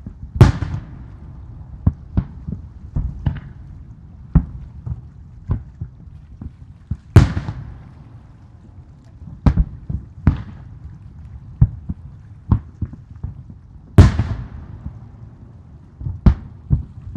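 Aerial firework shells bursting. Three big booms come about seven seconds apart, each with a long fading tail, among many fainter thuds of other shells launching and bursting.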